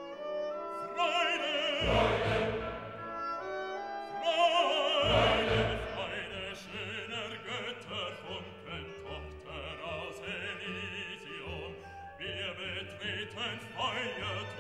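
Background classical music: an orchestral piece with a wavering, operatic-sounding voice, and deep low swells about two and five seconds in.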